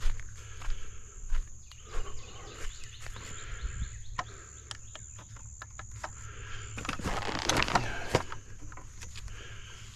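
Short clicks and knocks of camping gear being handled and packed, with a louder rustle about seven seconds in, over a steady high-pitched insect drone.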